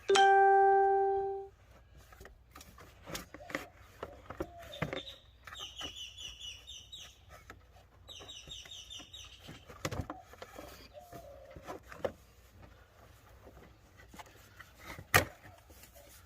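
A loud steady pitched tone for about a second and a half at the start, then scattered sharp clicks and knocks of engine-bay parts being handled and fitted back in place. Birds chirp twice in the middle.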